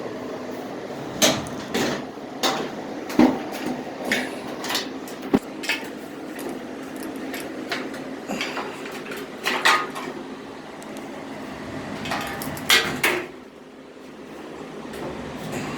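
Irregular metallic clanks, clicks and knocks from handling the dryer's sheet-metal cabinet and screws while the top panel is removed, over a steady background hum.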